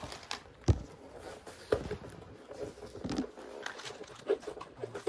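Cardboard snack box being handled and knocked against a wooden table: a few separate knocks and soft rustles, the deepest thud about a second in.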